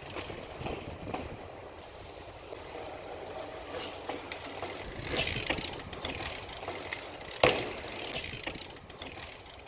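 Slopestyle mountain bike rolling on pavement: steady tyre noise and rattle, with one sharp knock about seven and a half seconds in.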